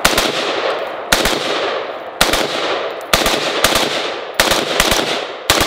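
Franklin Armory AR-15 in 5.56 NATO fired with its binary trigger in binary mode: about eight quick pairs of shots, one on the trigger pull and one on the release, each pair followed by a long fading echo.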